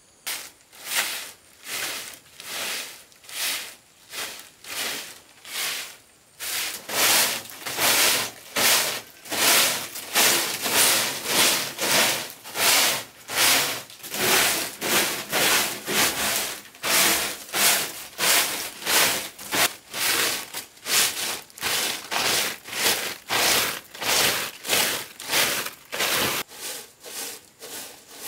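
A hand tool scraping back and forth on wood in steady rhythmic strokes, softer and slower for the first six seconds, then louder at about two strokes a second.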